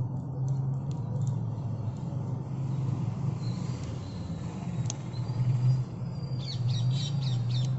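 A steady low drone runs throughout, with birds chirping in a quick cluster of short calls near the end.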